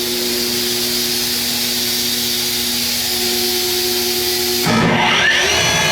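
Strasbaugh glass generator running with a steady hiss and a low hum while its table turns; about three-quarters of the way in a louder motor starts up with a whine rising in pitch, the grinder spindle spinning up.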